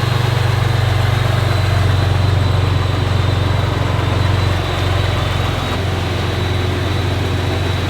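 2019 Ford Raptor's twin-turbo EcoBoost V6, fitted with new AMS turbo inlet tubes, idling steadily while it warms up after a fresh start.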